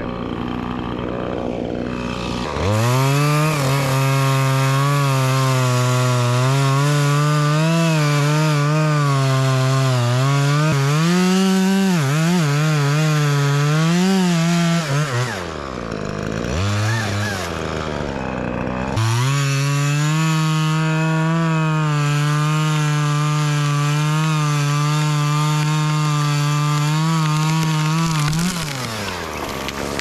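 Chainsaw idling, then opened to full throttle about two and a half seconds in and cutting through a poplar trunk, its pitch wavering under load. It drops back to idle for a few seconds around the middle, runs at full throttle cutting again, and is let back down to idle near the end.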